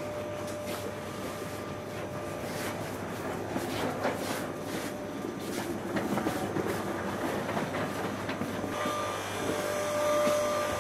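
Supermarket room noise heard while walking with a handheld camera: rustling and many light knocks over a steady low hum.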